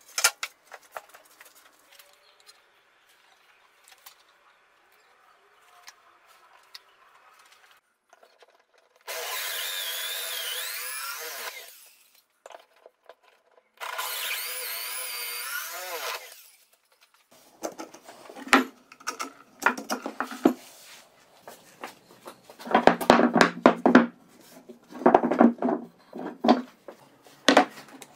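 Electric drill in a drill-guide stand boring into plywood, run in two bursts of a few seconds each, its whine wavering and dipping as the bit bites. Later come irregular rubbing and knocking sounds of wood being handled.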